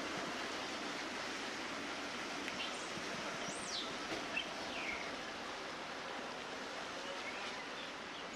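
Steady outdoor background hiss with a few short, high bird chirps near the middle.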